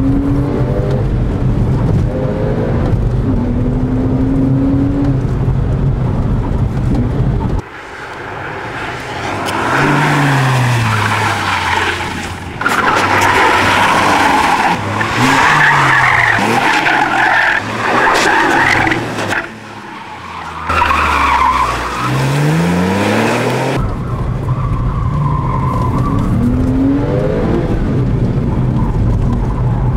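Porsche 911 Carrera 4S (997) 3.8-litre flat-six heard from inside the cabin, its pitch falling and rising again and again as it is driven hard through the corners. Through the middle stretch the tyres squeal over the engine.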